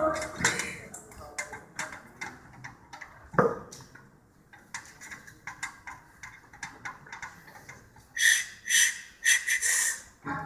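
Loaded barbell being walked out of a squat rack in a quiet hall: scattered light clicks and knocks, with a heavier knock about three and a half seconds in. Near the end come three or four short, loud, high-pitched sounds.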